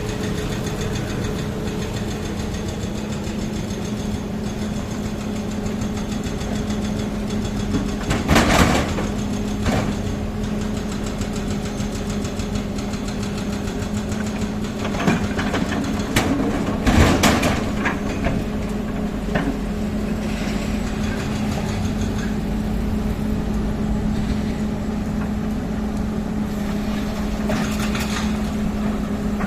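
Heavy construction machine's engine running steadily at a constant speed, with a few sharp metallic clanks and knocks about 8 seconds in and again in a cluster a little past the middle.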